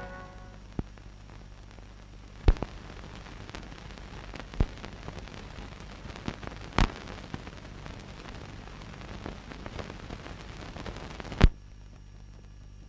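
Steady hiss and low hum from an old film soundtrack with no music, broken by a handful of scattered clicks and pops. The loudest pop comes near the end, after which the hiss drops away and only the hum is left.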